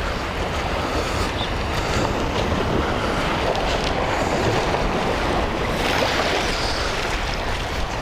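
Small waves washing onto a sandy shore, a steady surf hiss, with wind rumbling on the microphone.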